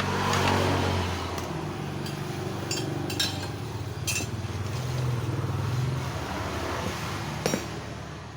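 A small engine running steadily, its pitch drifting up and down, with a few light clicks of handling and one sharp knock near the end.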